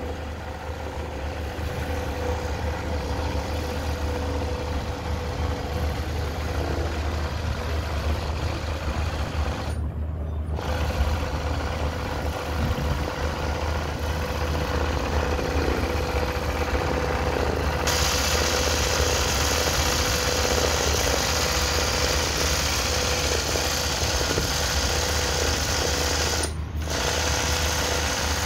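SunStar industrial sewing machine running continuously at speed, its needle stitching rapidly through satin during freehand machine embroidery.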